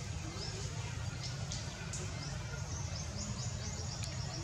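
Small birds chirping, many short high calls in quick succession, over a steady low rumble.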